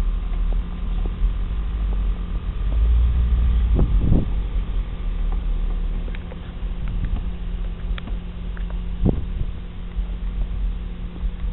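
Chevy Tahoe running, with a deep, steady low rumble and a couple of brief rising sounds about four and nine seconds in.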